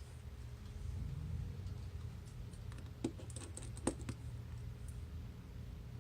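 A few light clicks and taps of small repair tools against an iPhone's parts, clustered about three to four seconds in, over a steady low hum.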